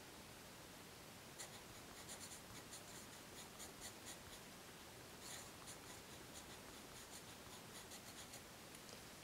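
Faint scratching of a pencil writing on paper in short irregular strokes, starting about a second and a half in.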